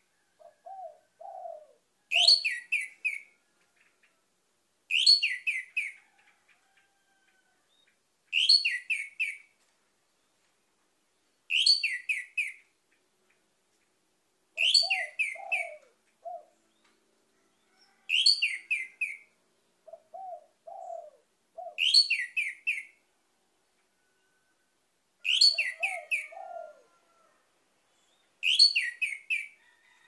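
Orange-headed thrush (anis merah) singing the same short, high, rapid phrase about every three seconds, nine times over. Between some phrases there are a few quieter, lower notes.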